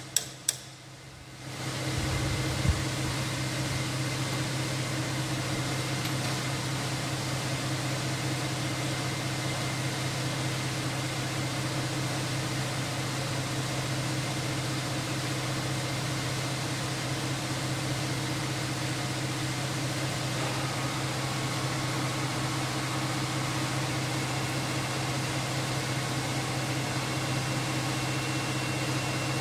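A couple of sharp metal clicks, then about two seconds in an electric machine motor starts up and runs steadily with a low hum and an even hiss.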